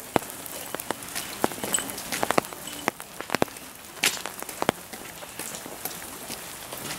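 Steady rain falling, an even hiss broken by irregular sharp taps of individual drops.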